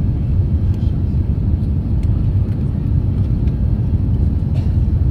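Airliner cabin noise heard from a window seat during descent: a steady, even low rumble of engines and airflow.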